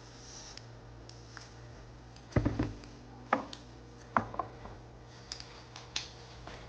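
A few sharp knocks and clicks of things being handled and set down, the loudest a short cluster about two and a half seconds in, over a steady low hum.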